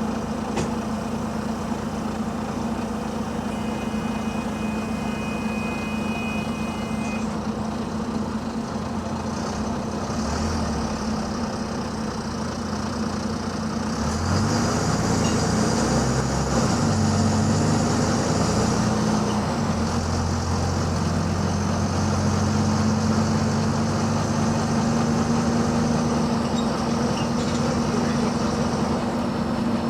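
Double-decker bus engine with an exhaust leak, heard running at a steady idle, then pulling harder and louder about halfway through with rising and falling engine pitch before settling into a steady cruise. A high steady tone sounds for about three seconds near the start.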